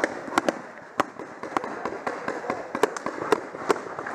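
Paintball markers firing: an irregular scatter of sharp pops, several a second, some louder and nearer than others.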